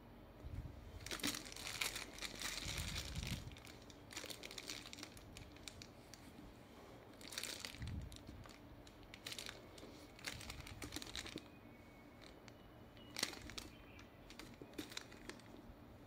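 Clear plastic protective film on a leather handbag's handles crinkling in several bursts as the bag is handled, with a few soft low bumps from the handling.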